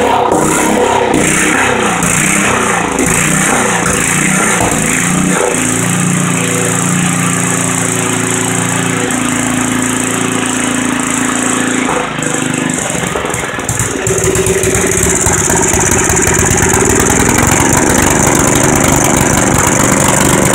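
Troy-Bilt Pony tiller's small single-cylinder air-cooled engine running steadily after its carburetor was cleaned. Its note changes and gets a little louder about two-thirds of the way through.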